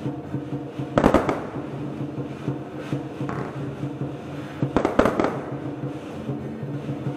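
Fireworks going off in two quick clusters of sharp bangs, about a second in and again near five seconds, over steady sustained music.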